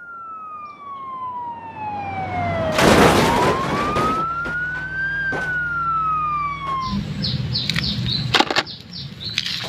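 Ambulance siren wailing in slow glides: one long fall in pitch, then a rise and another fall, ending about seven seconds in. A loud rush of noise sweeps through about three seconds in.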